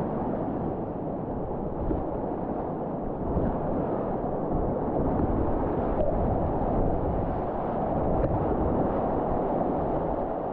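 Rushing whitewater of a river rapid, a steady rushing noise, with wind buffeting the microphone.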